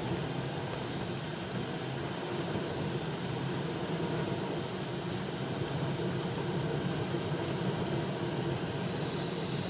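Steady road and engine noise heard inside the cabin of a moving car, an even low rumble with no sudden events.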